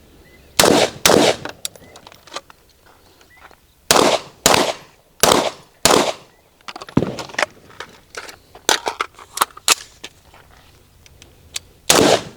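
Timed rifle-to-pistol transition drill: two rifle shots in quick succession, then after a pause of a few seconds four handgun shots about two-thirds of a second apart. A sharp knock follows, then a run of fainter clicks and knocks, and another shot sounds near the end.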